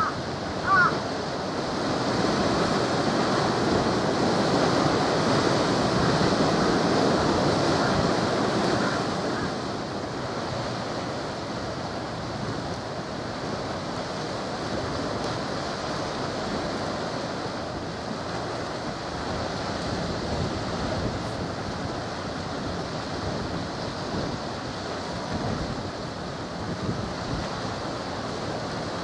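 Steady rush of wind on the microphone and waves on the shore, louder for the first several seconds and then easing, with a couple of brief high chirps right at the start.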